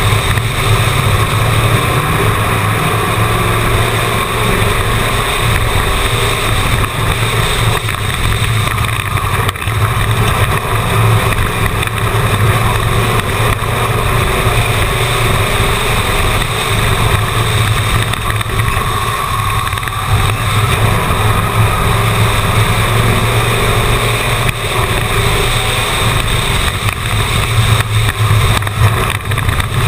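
Stock car engine running hard at lap speed, heard from inside the car: a loud, steady drone with small rises and dips through the turns, with wind and road noise over it.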